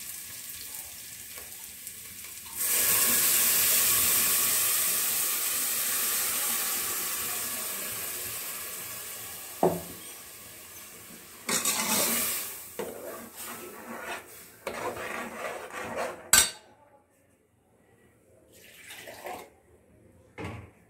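Ground spinach paste hitting hot oil and sautéed onions in an aluminium pot: a loud sizzle that starts a few seconds in and slowly dies away. A steel ladle then knocks and scrapes against the pot, with a sharp clank near the end.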